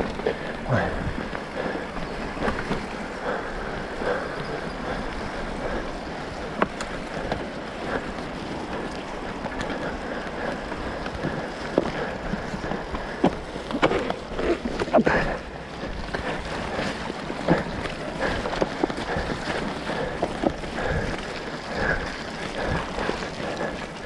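Mountain bike ridden down a trail: steady wind noise on the microphone and tyre rumble, with frequent short knocks and rattles from the bike over bumps.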